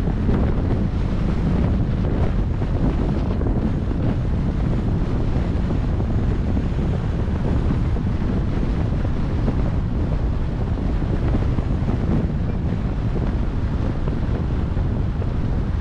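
Wind rushing over the microphone of a camera on a moving car, with steady low rumble from the drive and no breaks.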